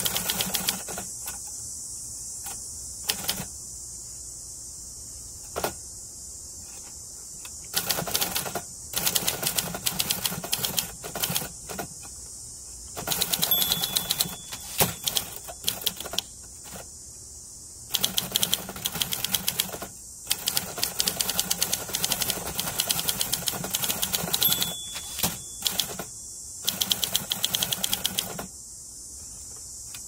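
Typing on a 1960 Olympia SM-4 manual typewriter: fast runs of typebar and key clacks broken by short pauses. A short bell ding sounds twice, about eleven seconds apart, the end-of-line warning. A steady high hiss runs underneath.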